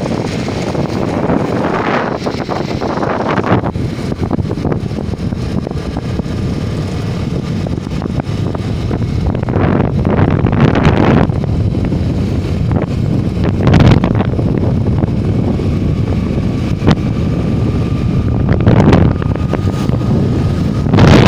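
Wind buffeting the microphone over the steady low rumble of a moving vehicle, with gusts swelling louder every few seconds.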